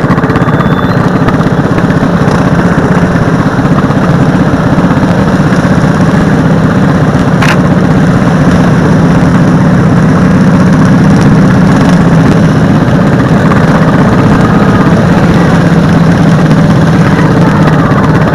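Racing lawn mower's engine running hard at speed, loud and steady.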